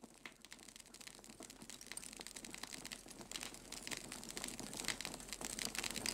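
Dense, irregular crackling that starts very faint and grows steadily louder.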